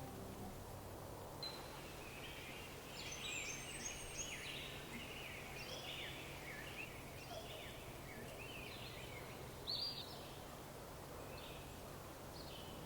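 Wild birds chirping and calling in a forest: many short, quick notes in busy clusters, thinning out after about ten seconds, over a soft steady background hiss.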